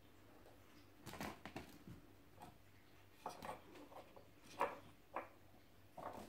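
Kittens playing: scattered quiet taps, scrapes and rustles of paws and claws on a tile floor and a wicker basket, the loudest about four and a half seconds in.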